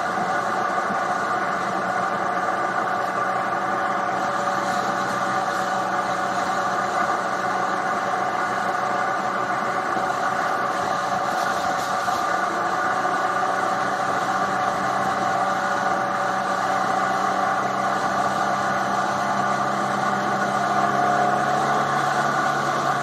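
Triumph Tiger 800 XRt's three-cylinder engine running steadily at cruising speed, with an even, unchanging pitch.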